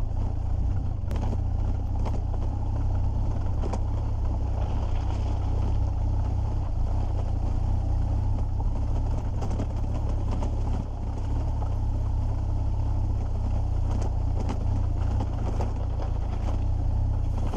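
BMW R1200GS's boxer-twin engine running steadily as the motorcycle climbs a rocky dirt trail, a deep, constant rumble, with a few sharp clicks from loose stones under the tyres.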